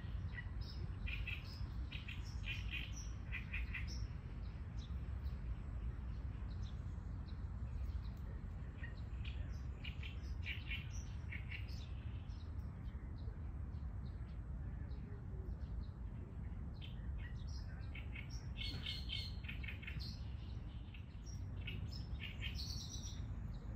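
Songbirds chirping in clusters of short, high tweets, over a steady low rumble.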